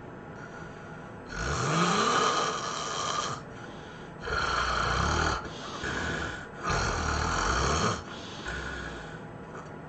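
A person snoring heavily: a series of loud, noisy snoring breaths, each about a second or two long, with short quieter gaps between them. The first snore comes about a second in and opens with a rising pitch, and the loudest snores follow one another more closely in the second half.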